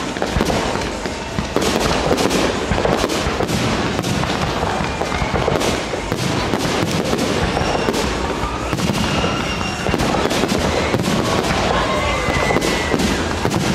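Aerial fireworks display: shells bursting one after another in a dense, continuous run of bangs and crackle.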